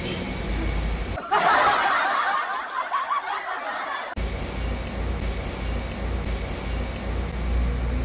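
A burst of snickering laughter lasting about three seconds, starting about a second in. A steady low hum lies under the rest.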